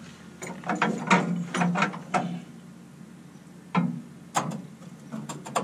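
Ratchet clicking: a quick run of several clicks, then a few single clicks, as the strap and jack holding a lowered pickup fuel tank are adjusted.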